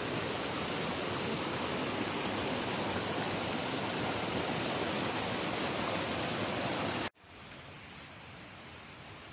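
Small mountain stream rushing over stones, a steady even hiss of running water. About seven seconds in it cuts off abruptly to a much quieter steady background hiss.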